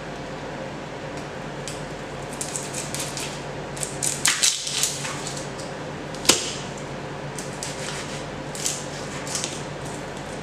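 A kitchen knife cutting through a fresh onion on a plastic cutting board: crisp crackling cuts about four seconds in, one sharp knock of the blade on the board about six seconds in, then light rustling as the papery onion skin is peeled off. A steady low hum runs underneath.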